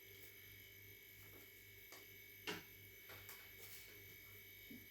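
Near silence: faint steady room hum, with one soft tap about halfway through and a few fainter ticks.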